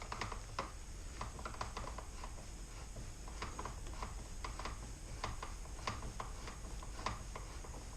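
Light, irregular clicks and ticks of a T20 Torx driver working the door-handle lock screw through the access hole in a car door's edge, over a faint low hum.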